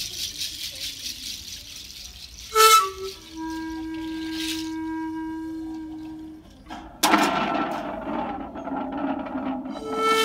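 Andean street music: a seed-pod rattle shakes in a quick rhythm, then a wind instrument, likely panpipes, sounds a short sharp note followed by a long steady low note. About 7 s in, a louder rushing, rattling noise starts, and a pipe note sounds near the end.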